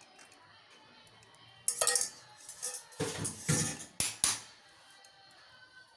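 Kitchen utensils and dishware clattering: a few short clinks and knocks between about two and four and a half seconds in, ending with two sharp clicks. Faint background music underneath.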